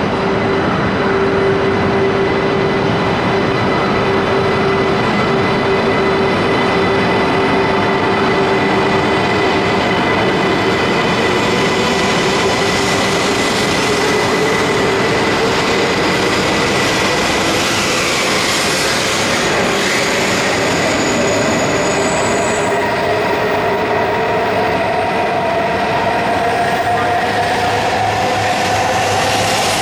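Shinkansen train moving along the platform: a steady rush of wheels and air under a constant electric whine. A second motor whine rises in pitch over the last ten seconds as the train picks up speed.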